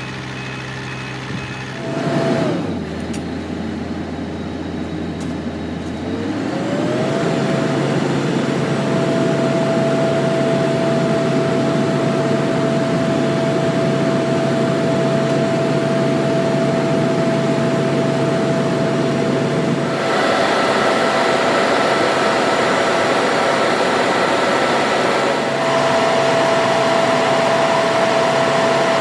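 Heavy truck engine running with a steady whine. About two seconds in it winds down to a low hum, and around six seconds it winds back up and holds.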